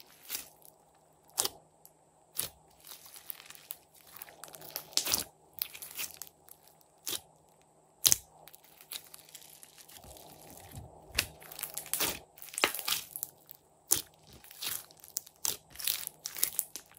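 Hands squeezing and pressing a large mass of glossy slime mixed with floam foam beads, giving irregular sharp pops and crunchy crackles with short quiet gaps between.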